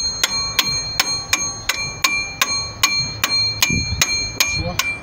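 A steel spanner working a bolt on the Actros engine's timing gears: rhythmic metallic clicks, about three a second, each with a short bell-like ring.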